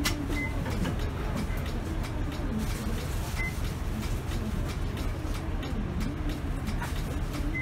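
City bus engine running, heard from inside the cabin as a steady low rumble with a wavering drone. A faint short high beep sounds twice, about three seconds apart.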